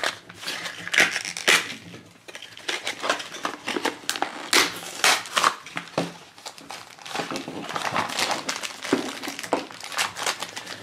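Stiff plastic toy packaging and cardboard crinkling and crackling in the hands as a capsule package is pulled from its box and worked open.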